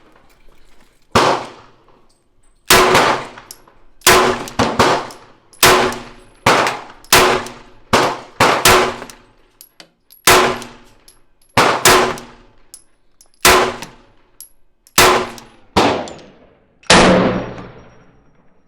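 A string of 9mm pistol shots from a Glock, about fifteen rounds fired at an uneven pace of one to two a second, each a sharp crack with a ringing tail.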